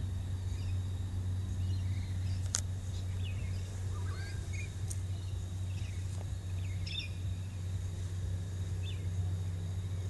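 Outdoor garden ambience: birds chirping faintly and intermittently over a steady low hum, with a thin high insect-like tone throughout. Two sharp clicks, one about two and a half seconds in and one about five seconds in.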